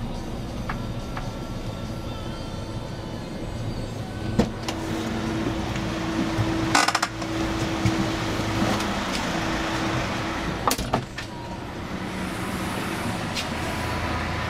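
Steady low rumble inside a van's empty cargo area, with a knock about four seconds in and a louder rattling clunk near the middle. A sharp click follows a few seconds later as the rear door is unlatched and opened.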